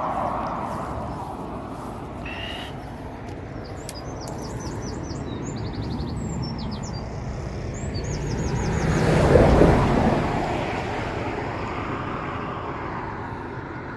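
Road traffic going by: steady tyre and engine noise that swells as a vehicle passes, loudest about nine to ten seconds in, then fades. Small birds chirp in short rapid trills between about three and seven seconds in.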